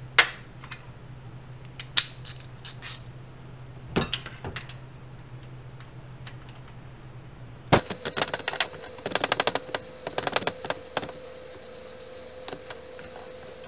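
Socket ratchet clicking in quick runs as bolts on the thermostat housing of a Jeep 4.0-litre inline six are worked loose, with a few separate metallic clicks and knocks of tools being handled first.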